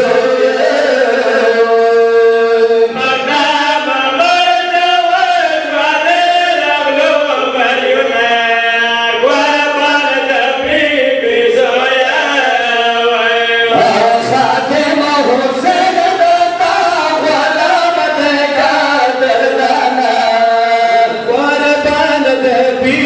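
Group of men reciting a Pashto noha, a Shia lament, chanting the melody together.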